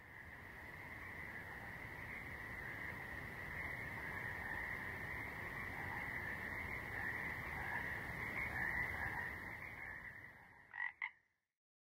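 A steady chorus of calling animals, holding one even high pitch over a low rumble, fading in at the start. Two short separate calls stand out near the end, then it cuts off suddenly.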